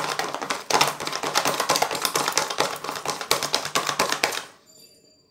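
Wire whisk beating a thick, creamy whipped coffee, sugar and water mixture in a plastic bowl: a fast, continuous clicking and tapping of the wires against the bowl that stops abruptly near the end.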